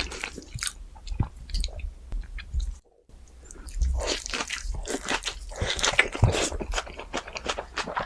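A person chewing and crunching food close to the microphone, with many crisp crackles, and a brief cut to silence about three seconds in.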